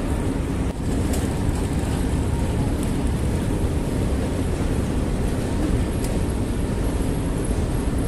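Steady low rumble of a moving escalator, with a faint tick or two.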